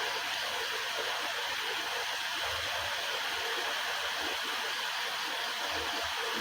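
A steady, even rushing hiss that holds one level throughout.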